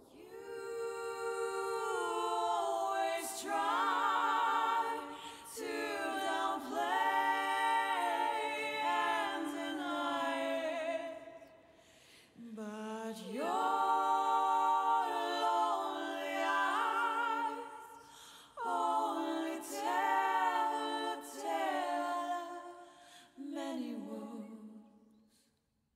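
A cappella vocal harmonies: several voices holding long notes with vibrato, in phrases broken by short pauses about twelve and eighteen seconds in, fading out shortly before the end.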